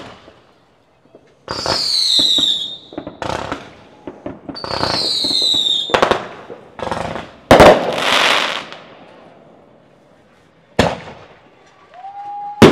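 Neighbourhood consumer fireworks: two whistling rockets, each with a falling whistle, then several sharp bangs. The loudest bang, about seven and a half seconds in, is followed by a second or so of crackling, and a steady tone starts near the end.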